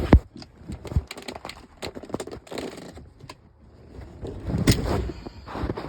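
Handling noise from fitting a car's shift knob: an irregular string of plastic clicks, knocks and rustles, with a louder cluster about four and a half seconds in.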